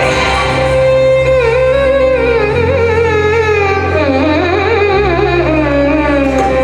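Carnatic-style music with a steady drone beneath a melody that glides and wavers with heavy ornamentation.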